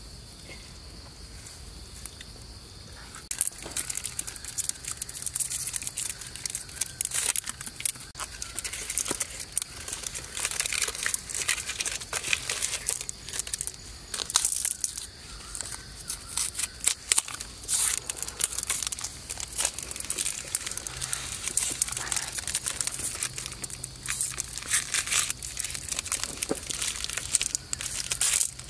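Wrappers of Mentos mint rolls crinkling and tearing as they are slit open with a knife: a dense run of crackly rustling and quick clicks that starts about three seconds in.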